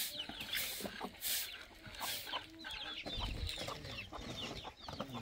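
Chickens clucking and calling, with many short, high calls one after another and a few sharp knocks in the first second and a half.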